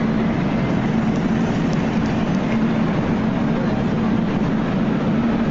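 Steady, eerie background noise: a constant low hum over an even rumbling hiss. The recorder thinks thunder and lightning hitting the audio system caused it.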